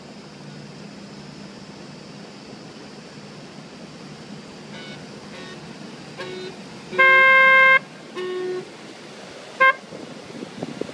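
A water taxi's horn sounding a string of short toots of differing pitch. The longest and loudest blast comes about two-thirds of the way in and lasts under a second, with shorter ones before and after it, over a steady faint background hiss.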